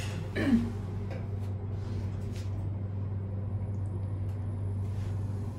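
Passenger elevator car travelling between floors, a steady low hum from the drive with a few faint ticks. A brief sound falling in pitch about half a second in, as the doors finish closing, is the loudest thing.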